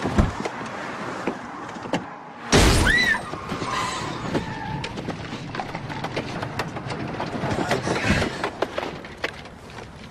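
Car crash: a sudden loud impact with breaking glass about two and a half seconds in, a brief squeal on top of it, then scattered clicks and rattles and another thump near the end.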